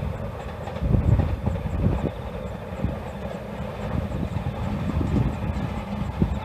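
Meitetsu electric commuter trains rolling past at a distance, a steady noisy run of wheels on track, with the strongest sound low in pitch.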